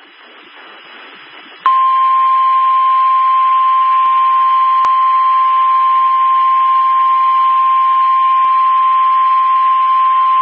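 NOAA Weather Radio warning alarm tone: one steady high 1050 Hz beep that starts about two seconds in after faint radio hiss and holds unbroken for about nine seconds. It is the attention signal that comes before a tornado warning broadcast.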